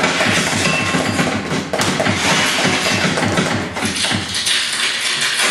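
Drums played in a fast, steady rhythm, about four to five low beats a second under a bright, noisy wash.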